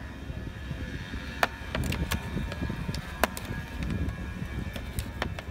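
A thin plastic water bottle clicking and crackling as a small knife is pressed through it to punch holes: four or five sharp, separate clicks over a steady low rumble.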